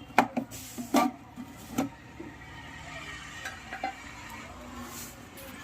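Handling noise from the amplifier unit being picked up and worked on: three sharp knocks and clicks within the first two seconds, then faint hiss with a few light ticks.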